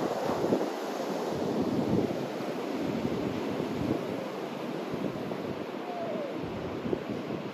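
Wind blowing across the microphone: a steady rushing hiss with uneven low rumbling gusts.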